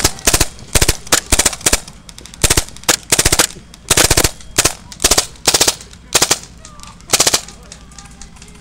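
WE Glock 18c gas blowback airsoft pistol firing short full-auto bursts of rapid clacks, a couple of bursts a second, stopping near the end.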